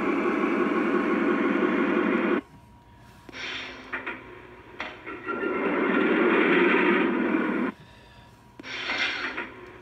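Lionel O-gauge model diesel locomotive running along MTH RealTrax track, a steady rushing noise of the running engine that drops away suddenly about two seconds in, comes back, and drops again near eight seconds. The owner reports it running with no shorts now that a second ground wire feeds both outside rails.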